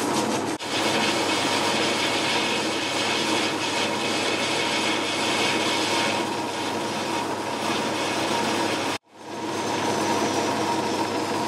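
Boxford metal lathe running with a cutting tool turning a small metal part, a steady noise of motor and cutting with a constant hum. It cuts out abruptly about nine seconds in and comes straight back.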